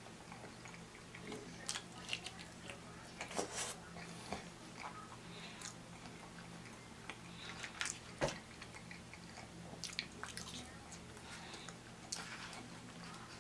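A person chewing soft, cheese-covered fries close to the microphone: scattered short wet mouth clicks and lip smacks, over a faint steady low hum.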